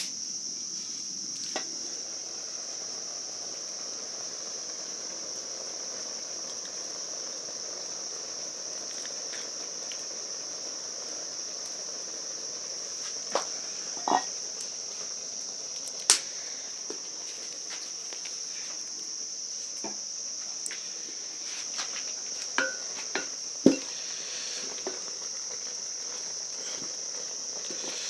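Crickets chirping in a steady, high-pitched evening chorus, with a few sharp knocks and clinks in the second half.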